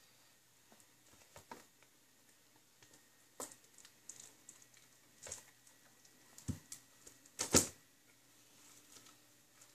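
Scissors snipping and plastic shrink-wrap crinkling as the wrapping is cut off a DVD box set: faint scattered clicks and rustles, with a soft thump and then the loudest sharp click a little past two-thirds of the way through.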